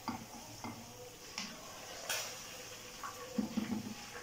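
A utensil clinking lightly against a frying pan a few times as fried chicken pieces are lifted out of hot oil, over faint frying in the pan. A short low hum sounds near the end.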